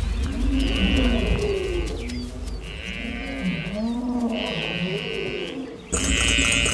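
African buffalo calling: a series of low bleating calls that rise and fall in pitch. A higher buzzing sound comes in bursts of about a second alongside them, and a sudden louder sound starts near the end.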